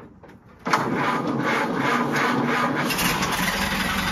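Ford Model A four-cylinder flathead engine being started: the starter engages suddenly under a second in and cranks with an even pulsing of about four beats a second, then the engine catches and settles into a steady run about three seconds in.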